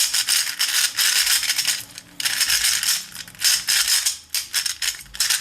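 Plastic Alpha CC 3x3 speed cube being turned quickly with finger tricks: a dense clatter of plastic pieces clicking against each other, breaking off briefly about two seconds in and again around four seconds. The turning works freshly applied Lubix lubricant into the cube.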